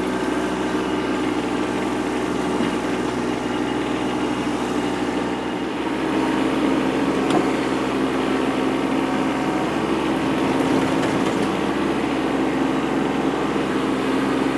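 An engine running steadily at a constant speed, getting a little louder about six seconds in.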